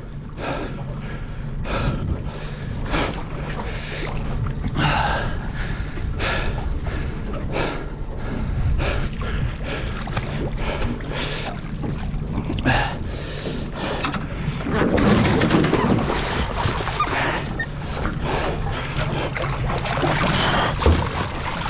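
Boat outboard motor idling with a steady low hum under water slapping and splashing at the hull. A hooked yellowtail kingfish thrashes at the surface beside the boat, and the splashing is loudest about fifteen seconds in.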